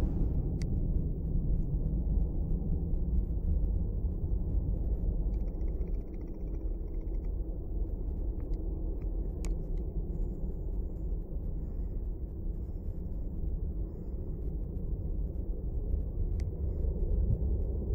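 Airbus A330 jet engines heard from far off as the airliner climbs away after takeoff: a steady low rumble.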